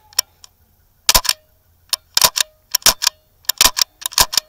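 Airsoft gunfire: a couple of single sharp clicks near the start, then, from about a second in, rapid clusters of sharp clacks coming every half second or so.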